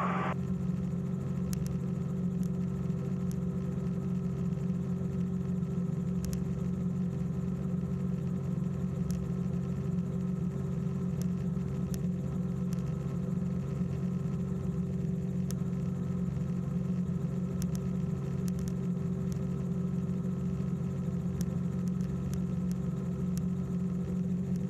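Small propeller airplane's engine and propeller droning steadily in cruise, heard from inside the cabin, with an even, unchanging pitch.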